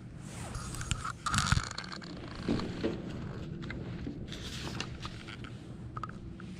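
A large paper poster rustling and crinkling as it is picked up from a stack and handled, in two spells, with a few soft knocks about a second and a half in. A steady low hum runs underneath.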